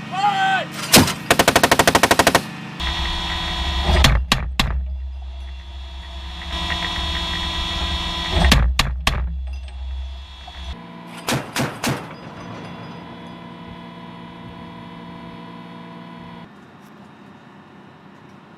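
M242 Bushmaster 25 mm chain gun firing: a rapid burst of about a dozen rounds a second in, then short bursts of two or three rounds, over a low rumble.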